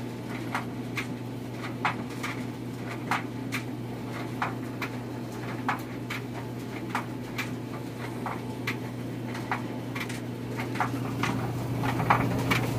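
Electric clothes dryer running: a steady low hum with pairs of light clicks repeating about every 1.3 seconds.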